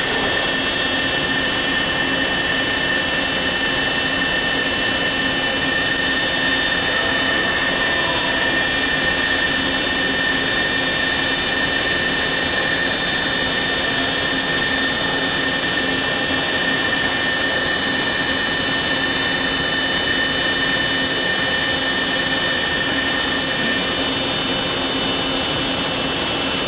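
1984 OM TM2-10N CNC lathe running under power: a steady machine hum and whir with several high whines, one of which drops out near the end.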